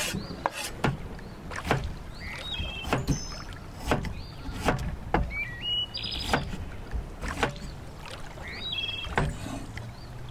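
Cleaver knife chopping garlic cloves on a bamboo cutting board: irregular sharp knocks on the wood. A bird repeats a short stepped whistled chirp several times behind them.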